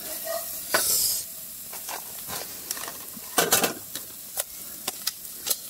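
A butter-and-flour roux sizzling in a frying pan on a portable gas stove, with a wooden spoon stirring and scraping against the pan. Two louder bursts come about a second in and about three and a half seconds in.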